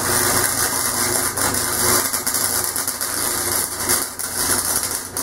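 Self-shielded flux-core welding arc from a budget 120-volt wire-feed welder, crackling and spitting steadily as a bead is run on steel square tube. The wire speed is set at 2, which the welder then judges too low.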